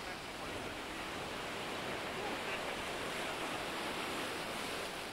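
Ocean surf washing up the beach, a steady rushing.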